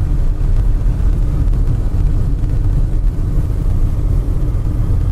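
Wind buffeting the microphone: a loud, steady, rough low rumble.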